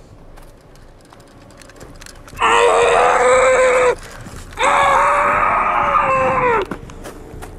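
A boy screaming twice, two long, loud yells of about one and a half and two seconds, the second dropping in pitch as it ends.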